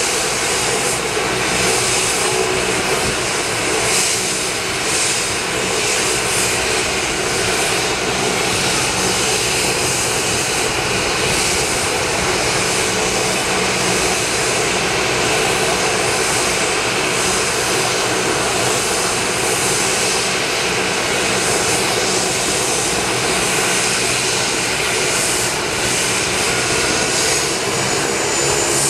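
AgustaWestland AW139 twin-turbine helicopter running on the ground with its rotors turning: a loud, steady turbine whine and rotor noise, with a faint high whine edging upward near the end.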